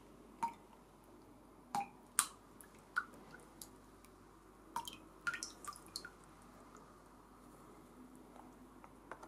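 About ten small wet ticks and taps, spread out, a few with a brief high ring, from a fine paintbrush working alcohol ink on a resin print in a plastic tray.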